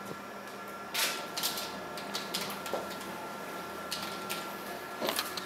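Computer keyboard being typed on: irregular clicking of keystrokes, starting about a second in, over a faint steady high-pitched tone.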